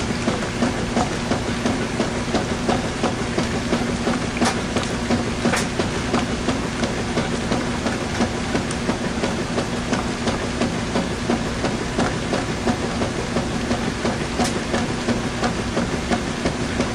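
Washing machine running with a load of towels: a steady hum under a regular churning pulse, about two to three beats a second, with a few sharp clicks.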